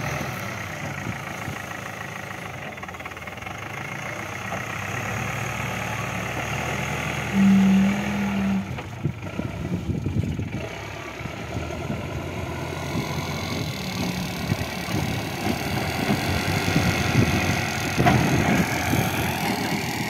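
Escorts backhoe loader's diesel engine running steadily as the machine works the ground, carrying and pushing soil. A little over seven seconds in, a loud single-pitch tone sounds for about a second.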